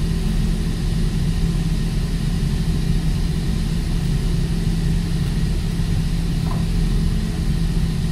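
Heavy machinery running with a steady low drone and a constant deep hum, unchanging throughout.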